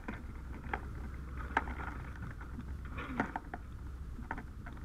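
Scattered light knocks and clinks of an aluminium ladder and a firefighter's gear as the ladder is gripped at its rungs, over a steady low rumble.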